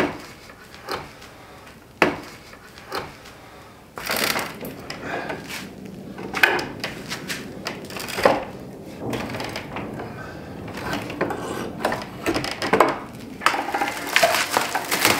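Wooden shipping crate being pried apart by hand: sharp knocks on the boards about once a second, then denser creaking, scraping and cracking as boards and nails work loose.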